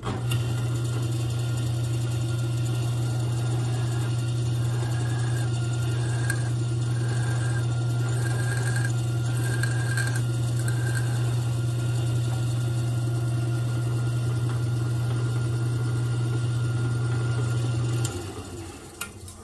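Drill press motor running steadily while the bit drills the pin hole through a knife's steel tang, with a faint intermittent whine of the cut. The motor is switched off about 18 seconds in and winds down.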